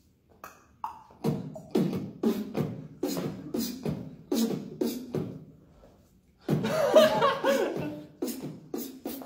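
Live beatboxing: a mouth-made beat of low kick thuds and sharp snare and hi-hat clicks. It breaks off briefly about six seconds in, then comes back louder with gliding, pitched vocal sounds over the beat.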